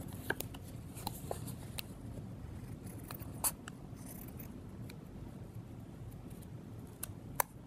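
Scissors snipping through felt: scattered quiet cuts and small clicks, one louder snip about halfway through and a sharp click near the end.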